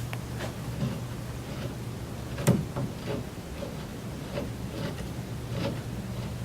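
Light metallic clicks roughly every half second and one sharper knock about two and a half seconds in, over a steady low hum: a pedal being threaded onto an exercise bike's crank by hand.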